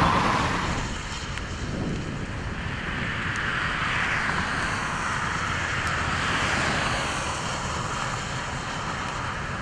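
Steady wind noise with the swish of vehicles passing on the road, and a few faint ticks.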